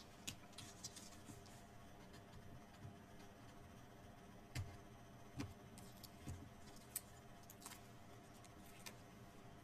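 Faint handling of cardstock pieces and their protective sheets: scattered light clicks and ticks, with a few soft knocks about halfway through, over near-silent room tone.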